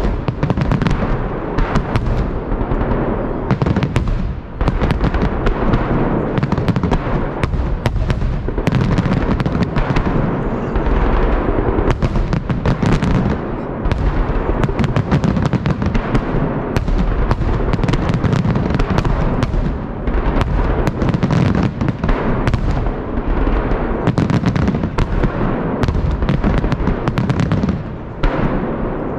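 A festive fireworks salute: firework shells bursting in a dense, continuous barrage of sharp bangs and crackles, with only a couple of brief lulls.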